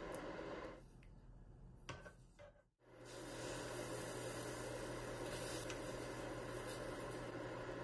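Faint, steady background hiss with a low hum. It drops out suddenly for a moment just under three seconds in, then carries on unchanged. No separate stirring or pouring sounds stand out from it.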